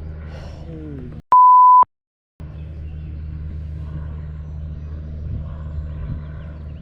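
An edited-in censor bleep: a half-second steady beep, the loudest sound, with the audio cut to dead silence just before and after it. A steady low hum runs under the rest.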